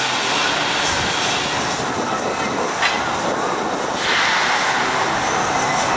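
Steady rushing noise with no clear pitch, growing louder and brighter about four seconds in.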